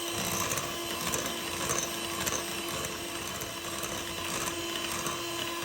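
Electric mixer running steadily at medium speed with a steady hum, its beaters whipping softened butter in a mixing bowl.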